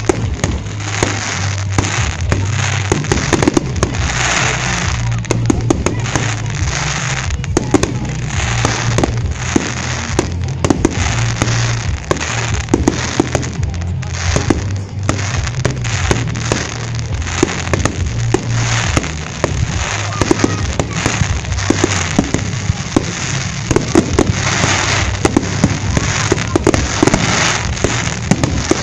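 Fireworks display: aerial shells bursting one after another in a dense, continuous run of bangs and crackling.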